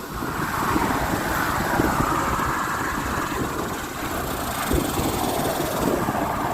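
A chorus of periodical (17-year) cicadas, a steady drone, with wind buffeting the microphone.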